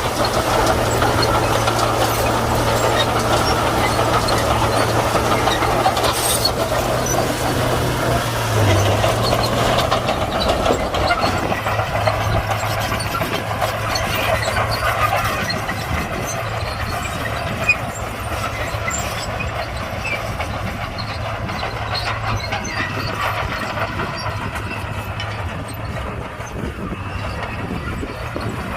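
Komatsu D41P bulldozer's diesel engine running with a steady low hum and a busier, louder working noise that eases off about ten seconds in. A single short knock sounds about two-thirds of the way through.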